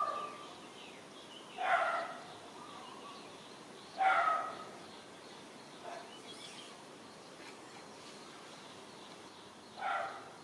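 Short animal calls, four of them in about ten seconds, each a sharp half-second cry, with one weaker than the rest near the middle.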